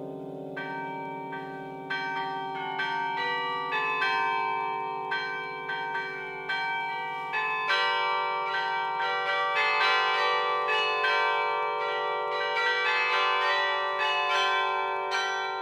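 Yale Memorial Carillon's bells played as a duet from the baton keyboard. Low bells ring on at first, then struck notes come in a melodic run that grows busier and louder about halfway through.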